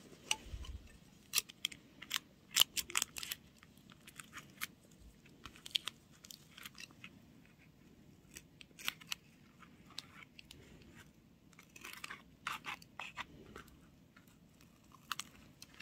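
Scissors snipping through clear packing tape and paper while trimming a paper squishy, a series of irregular sharp snips.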